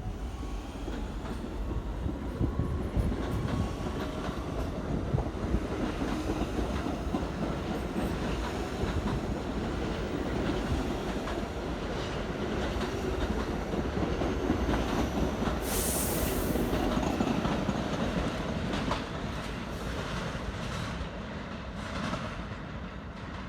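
R46 subway train pulling out of a station: its traction motors whine up in pitch as it gets under way, over steady rolling rail noise with wheels clicking over rail joints. A short high-pitched burst comes about two-thirds of the way through, and the sound eases off near the end as the train moves away.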